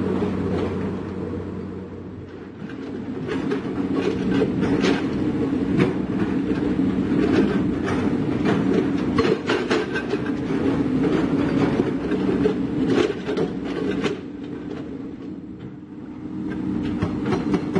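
Doosan DX225LCA excavator's diesel engine running under load while its steel crawler tracks clank and rattle over the steel loading ramps and truck deck, with many irregular metallic knocks over a steady engine note.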